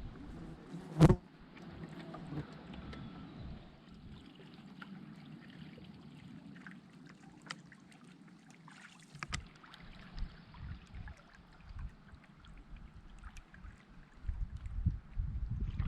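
Canoe being paddled: quiet paddle strokes with water trickling and dripping, and scattered small clicks. One sharp knock about a second in is the loudest sound, and a low rumble comes in near the end.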